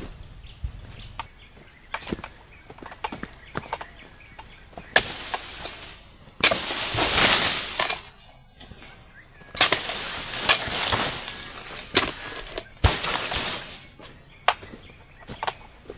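Pole-mounted harvesting chisel (dodos) striking and cutting into oil palm frond bases, with sharp knocks throughout. Four long, loud rustling swishes of palm fronds being cut free and falling.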